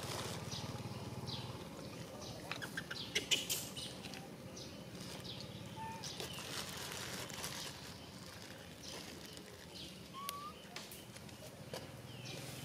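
Outdoor ambience of scattered rustles and clicks, loudest about three seconds in. Two short chirps come about six and ten seconds in, the second rising.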